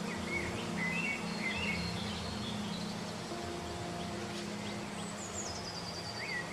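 Soft background music of low, held chords that shift every second or two, layered with bird chirps and twitters.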